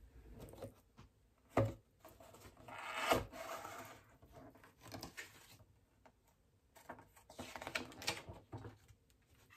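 A cardboard test-kit box being opened and handled on a desk while a paper instruction leaflet is pulled out and unfolded: scattered scrapes, paper rustling and light knocks. There is a knock about a second and a half in, the loudest rustle around three seconds in, and a run of rustling near the end.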